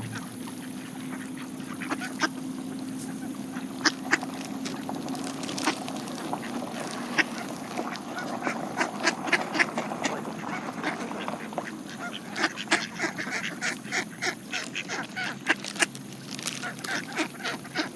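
Mallard ducks quacking while feeding on seeds, mixed with many short, sharp clicks of bills picking at the seed. The clicks and calls grow thicker about halfway through.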